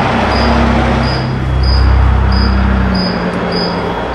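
Cricket chirping steadily, about two short high chirps a second, over a loud low rumble that swells about a second and a half in and eases off after three seconds.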